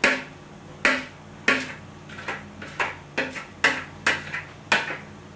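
A utensil knocking and scraping sauerkraut out of a plastic bowl into a stainless steel kettle. It makes about a dozen sharp, irregular knocks, roughly two a second, each with a short ring.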